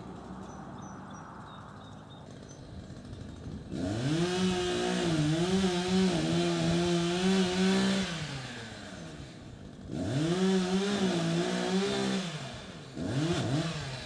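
Chainsaw idling, then opened to full throttle three times, returning to idle between. The first high-speed run lasts about four seconds with a slightly wavering pitch, the second about two and a half seconds, and the last is a short blip near the end.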